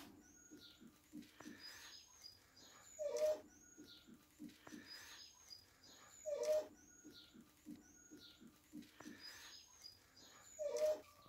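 Wolf-dog hybrid puppies whimpering faintly, three short calls a few seconds apart, among soft rustling as they are stroked; a bird chirps faintly and over and over in the background.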